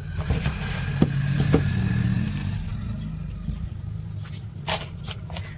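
Electric fan motor humming steadily, with several sharp clicks and knocks of handling over it.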